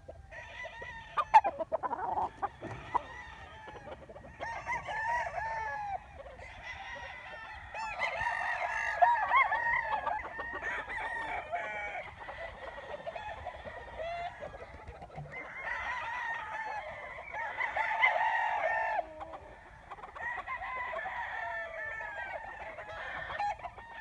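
Several roosters crowing again and again, their crows overlapping, with chickens clucking among them. A sharp click about a second in.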